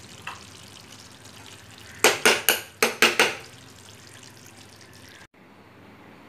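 Kitchen clatter: about six sharp knocks in quick succession, around two seconds in, over a faint steady hiss.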